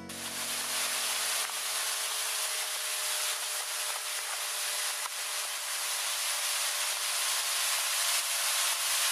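Steady rushing noise of wind and churning wake water from a speedboat moving at speed, with no distinct engine note. The last low notes of background music die away in the first few seconds.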